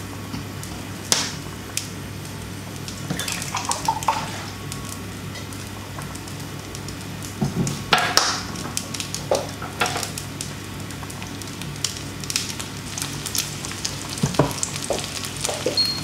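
Food frying in a pan with a steady sizzle, broken by scattered clinks and knocks as a glass and a plastic water bottle are handled on the kitchen counter.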